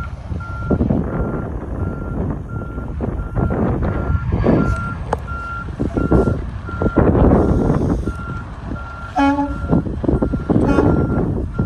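Tractor-trailer's reversing alarm beeping at an even pace, a little under two beeps a second, over a low rumbling noise as the rig backs up.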